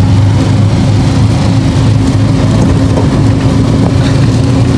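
Auto-rickshaw engine running steadily while driving, heard from inside the open passenger compartment, a constant low hum.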